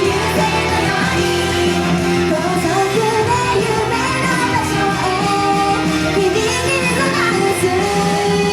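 Idol-pop song: female singing over a loud instrumental backing with guitar.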